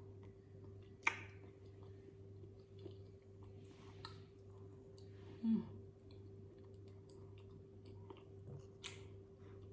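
Close-miked mukbang eating: soft chewing with scattered small clicks and wet mouth sounds of seafood boil, over a faint steady hum. A short low falling vocal sound comes about halfway through.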